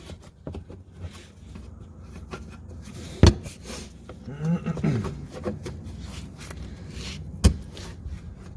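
A flathead screwdriver prying at a plastic push clip on a car's belly pan: small scrapes and clicks, with two sharp snaps, one about three seconds in and one near the end. A brief grunt comes in between them.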